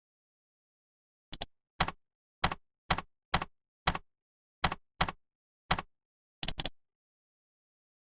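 A series of about a dozen short, sharp clicks, several in quick pairs, irregularly spaced against dead silence. This is typical of an edited-in typing or clicking sound effect.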